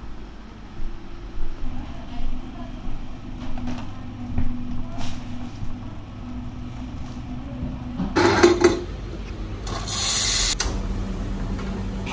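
Café room tone with a low steady hum, then near the end two loud rushing bursts of hiss from the espresso bar at a Rancilio espresso machine and grinder: a short one, then one lasting about a second.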